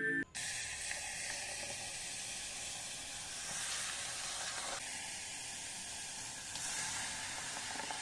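Milky tea sizzling and hissing steadily as it is poured into a red-hot clay cup (kulhad) and froths over.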